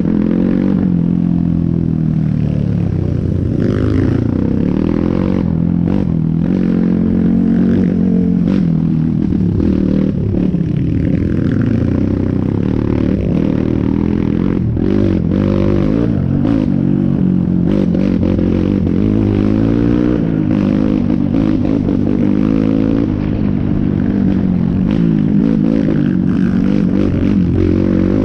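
Dirt bike engine being ridden on and off the throttle, its pitch rising and falling constantly, with frequent knocks and rattles from the bike over rough ground.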